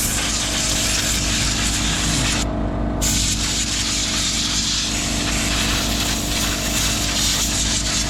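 Compressed-air blow gun blasting packed sawdust out of a chainsaw's recoil and engine cooling area: a loud, steady hiss that breaks off for half a second about two and a half seconds in, then carries on.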